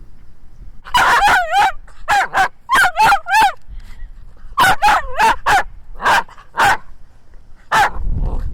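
Small dog, a miniature dachshund, barking in quick runs of short, high-pitched yapping barks, about twenty in all, with a low rumble of wind on the microphone near the end.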